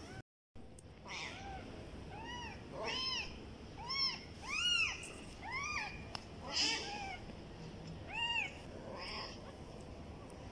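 Ten-day-old kittens mewing: short, high, thin cries that rise and fall in pitch, repeated about once a second.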